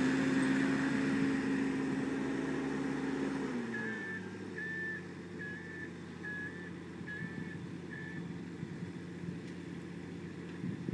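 Avant 635 loader's Kubota diesel engine running steadily, then dropping to a lower speed about three and a half seconds in. Over the lower engine note come six short, evenly spaced high beeps.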